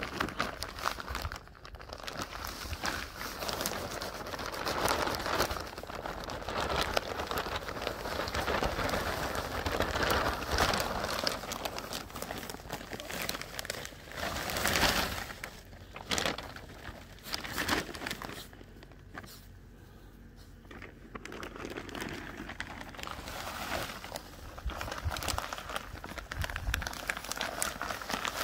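Plastic bag of lawn soil crinkling and rustling in irregular bursts as a labrador puppy pushes its head into it and roots in the soil.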